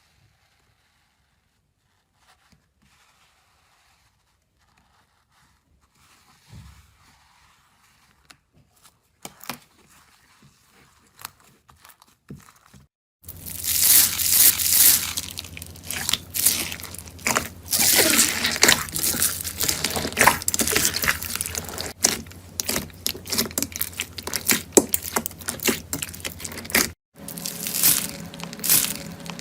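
Slime being pressed and squeezed by hand, crackling and crunching. Only faint scattered crackles at first, then dense, loud crackling from about halfway in, with a brief break near the end.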